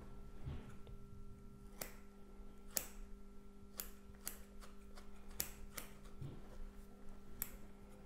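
Small scissors snipping medium-density foam as a toe-separator device is trimmed: a handful of sharp, irregularly spaced clicks of the blades closing, over a steady low hum.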